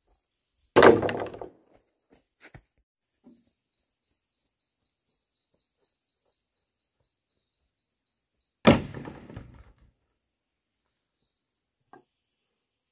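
Long green bamboo poles thrown down onto a pile of bamboo poles on bare earth: two loud clattering thuds about eight seconds apart, each trailing off over about a second.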